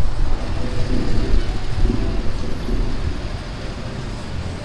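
Jeepney engine running with road and traffic noise, a heavy low rumble that grows quieter over the last couple of seconds.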